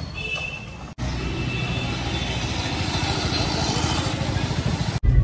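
Street traffic: a motor vehicle's engine running over steady road noise, quieter for the first second, then louder and rising slowly.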